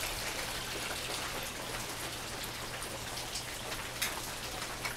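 Steady rain falling, while water is poured from a plastic gallon jug into a plastic bowl.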